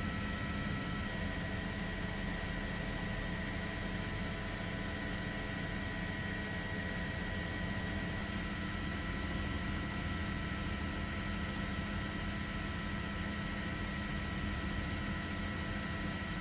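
Steady drone and hiss of an aircraft heard from on board the filming helicopter, with a few faint steady whining tones and no changes throughout.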